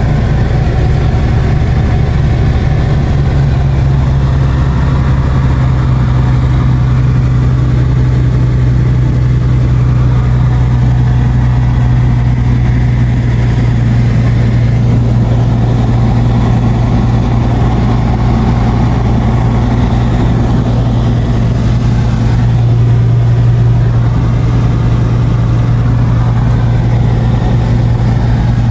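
Cabin sound of an Alpi Pioneer 200 ultralight in flight: its Rotax 912 piston engine and propeller running loud and steady, with an even low hum throughout.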